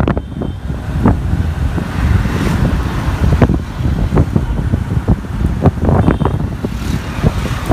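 Wind buffeting the microphone on a moving motorbike, in uneven gusts, over a steady low rumble of the bike and the road traffic around it.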